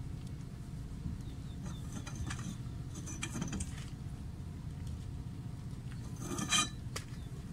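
Scattered metallic clicks and a sharper scrape about six seconds in, from a socket and extension bar on a car's rear wheel hub nut, over a low steady background rumble.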